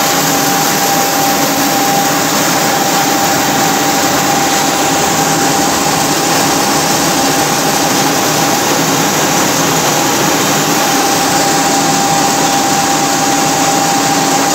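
Heavy vertical turret lathe running, its table turning a large metal workpiece while the tool cuts: a loud, steady machine noise with a constant whine.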